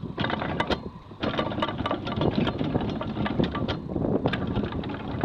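Anchor chain clattering out over the bow as a snubber bridle is set: a rapid, irregular run of knocks with a short break about a second in, over boat engine and wind noise.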